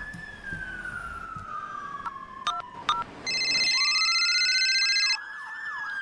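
Siren wail slowly falling in pitch and then rising again, with a few sharp clicks about halfway through. A steady high electronic tone, the loudest sound, sounds for about two seconds just past the middle.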